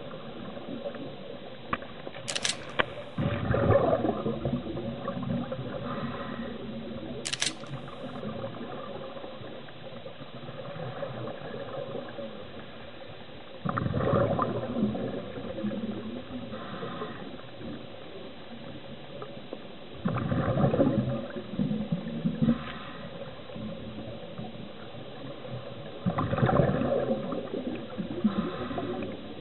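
Underwater sound picked up through a camera housing: a diver's scuba exhaust bubbles coming in four bursts several seconds apart, each a second or two long, over a steady hiss. Two short sharp clicks sound in the first eight seconds.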